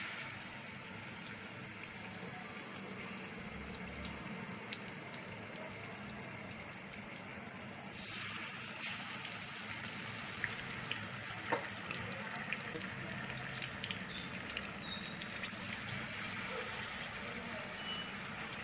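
Marinated fish steaks shallow-frying in hot coconut oil in a pan: a steady sizzle with scattered small pops and crackles, getting louder about eight seconds in.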